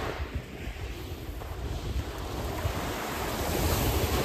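Small waves breaking and washing up a shingle beach, with a hiss that swells near the end as a wave breaks, over a low rumble of wind buffeting the microphone.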